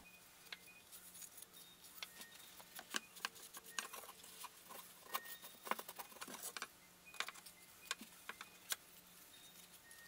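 Faint, irregular taps and clicks of thin wooden parts being handled and set down on a wooden workbench, with some rubbing as glue is wiped off with a shop towel, over a faint steady low hum.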